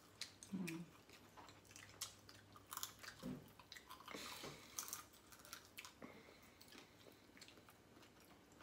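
Faint close-up chewing and biting of dried sweet pork jerky, with scattered small crunches and clicks.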